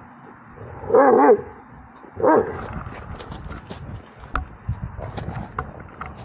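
A Dobermann barks twice, about a second apart, each bark short and loud with a wavering pitch. Then come small knocks and rustling as the dog goes in and grips the man's padded bite suit.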